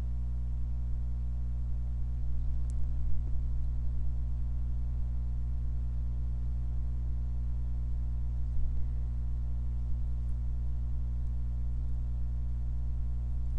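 Steady low electrical hum with a ladder of evenly spaced overtones, unchanging throughout: mains hum picked up by the recording setup.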